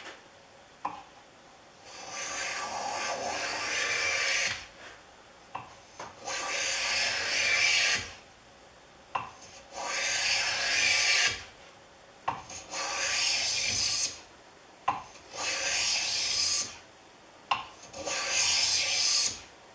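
Stanley No. 1 hand plane shaving the edge of a walnut board held in a vise: six long planing strokes about three seconds apart, each starting with a short tap as the plane meets the wood.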